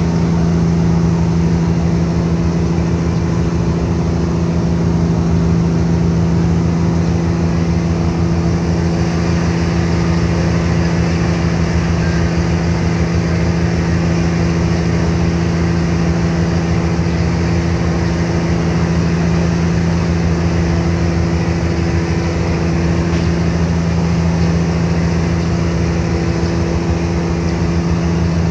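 Car ferry's engines running steadily underway: a low, even hum with a fast throb beneath it, over the hiss of water and wind.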